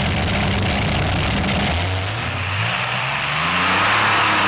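Twin Allison V12 aero engines of a modified pulling tractor running at a steady note, then rising in pitch from about two seconds in as they rev up.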